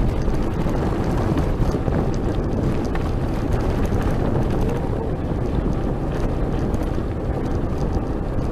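Wind rushing over the microphone while riding a gravel bike, a loud, steady rumble, with small clicks and rattles from the tyres on gravel.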